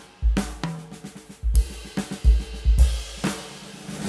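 Background music with a drum-kit beat: kick drum, snare and cymbals over a pitched backing.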